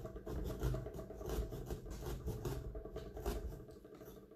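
Irregular scraping and rubbing with knocks and dull low thumps as a carved Halloween pumpkin is handled and worked on a table, dying away near the end.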